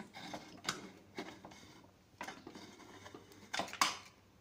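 Pressure cooker lid being unlocked and lifted off: a handful of sharp metal clicks and knocks as the lid handle is turned and the lid is worked free of the rim. The loudest clack comes near the end.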